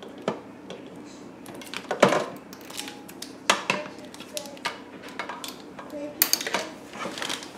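Clatter of an Instant Pot multicooker's lid and power cord being handled: a string of short knocks and clicks, the loudest about two seconds and three and a half seconds in.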